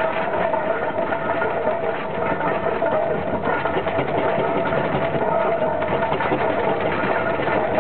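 1870 Fowler steam ploughing engine on the move, heard close from its footplate: a steady, rapid mechanical clatter from the engine's motion and gearing, with a steady whine running through it.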